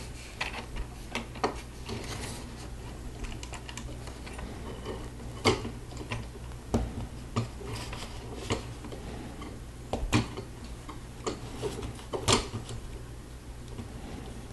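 Plastic Lego bricks clicking and snapping together as they are fitted by hand: irregular small clicks, with a few sharper snaps about five, ten and twelve seconds in.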